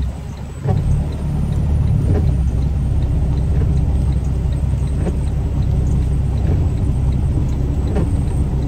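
Semi-truck tractor's diesel engine running as the truck rolls slowly, heard from inside the cab as a steady low rumble. The rumble dips briefly at the start, then picks back up. A faint ticking comes about twice a second.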